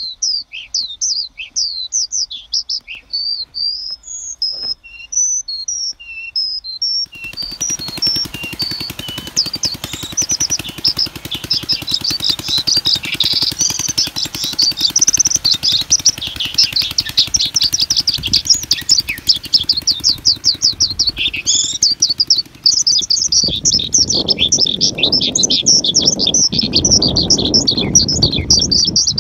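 Many small birds chirping and twittering in fast, overlapping trills. A lower rushing noise comes in near the end.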